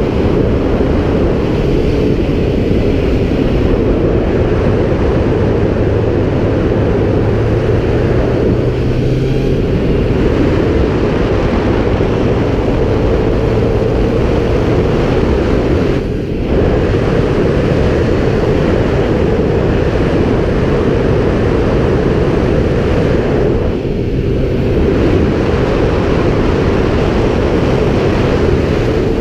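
Kawasaki Z750's inline-four engine running at steady road speed, mixed with heavy wind noise on the microphone. The sound dips briefly twice, about halfway through and again near the end.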